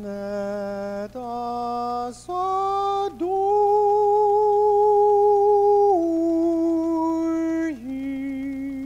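A man singing unaccompanied into a microphone, with no clear words: a few long held notes climbing to a high note held for about three seconds, then stepping back down to lower held notes.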